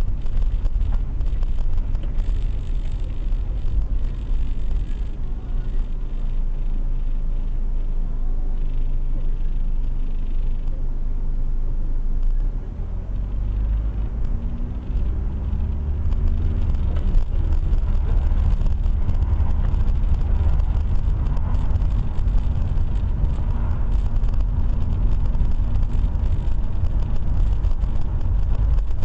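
Car engine and road noise while driving: a steady low rumble, with the engine note rising as the car speeds up about halfway through, dropping at a gear change, then holding steady.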